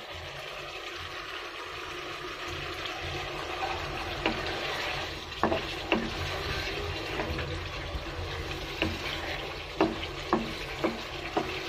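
Potatoes and a fish head sizzling as they fry down in spiced gravy in a non-stick wok. A wooden spatula stirs them and knocks against the pan about eight times from about four seconds in.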